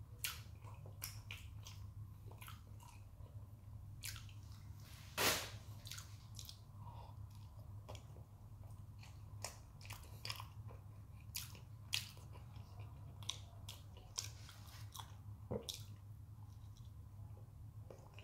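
A person biting and chewing a banana, soft mouth clicks and smacks coming every second or so, the loudest about five seconds in. A steady low hum runs underneath.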